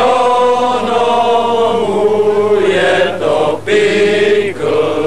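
A group of voices chanting together in long held notes, broken by short pauses, over a steady low hum.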